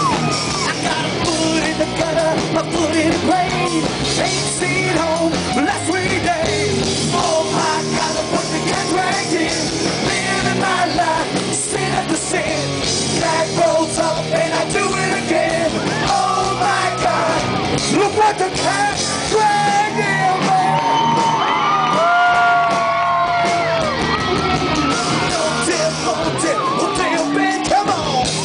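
Live glam-metal band playing a loud rock song, electric guitars and drums under a male lead singer's vocal.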